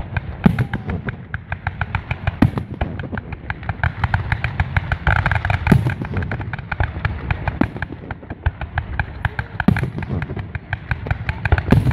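Fireworks display: a continuous rapid crackle runs throughout, and about five heavier shell bursts stand out every couple of seconds over a steady low rumble.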